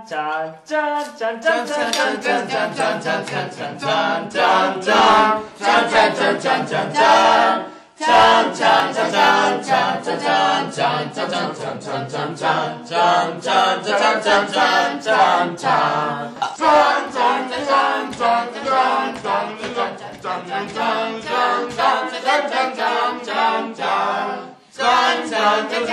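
Several voices singing together a cappella, a chant-like song in a steady run of short pulses, with two brief breaks.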